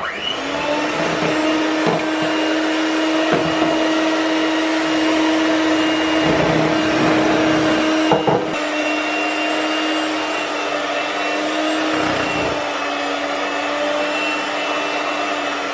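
Electric hand mixer with twin wire beaters running at a steady speed in cake batter, switched on abruptly at the start: flour is being beaten into the batter a little at a time. A few knocks sound over the motor.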